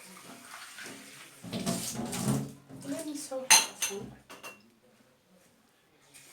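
Hard objects clattering and knocking as they are handled, with one sharp, loud knock about three and a half seconds in.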